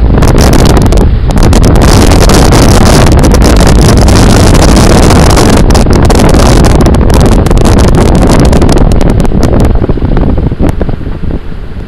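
Heavy wind buffeting the microphone: a loud, rumbling rush with sharp gusty spikes, easing off near the end.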